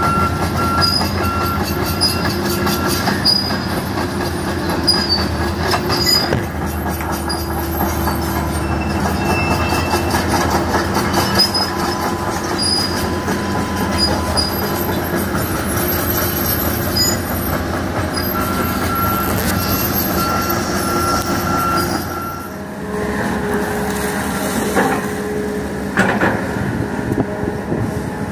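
Hitachi Zaxis 200 crawler excavator working, its diesel engine running steadily under load, with metallic squealing and clanking. The sound changes briefly a little after twenty seconds.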